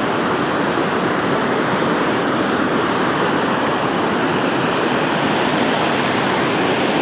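Steady, loud rush of water pouring through a dam spillway, an even hiss with no change in level.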